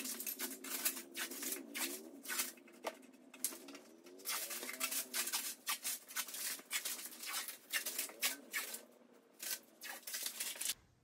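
Blue painter's tape being peeled off a vinyl plank floor and crumpled into a wad by hand: an irregular run of crackles and rustles.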